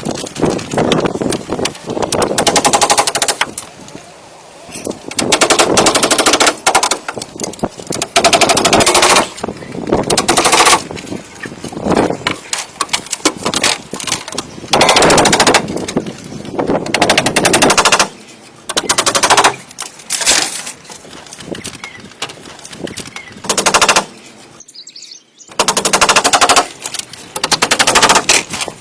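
A power woodworking tool cutting in repeated bursts of one to two seconds, each a fast rattle, with short pauses between bursts.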